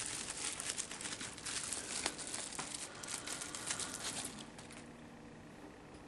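Plastic crinkling and rustling as it is handled, with many small ticks, dying away about four and a half seconds in.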